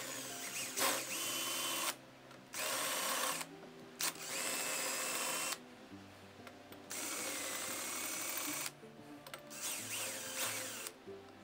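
Power drill with a countersink bit enlarging the countersinks on holes in a soft-metal lock body. It runs in short bursts of a second or two, stopping and starting several times.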